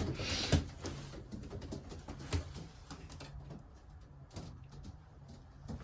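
Faint pigeons cooing in a loft, with a few scattered light knocks and rustles.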